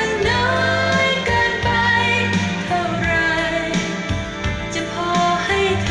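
A recorded song with singing over instrumental accompaniment, played back through an NAD 3020 stereo amplifier and its loudspeakers, the sung line gliding between notes.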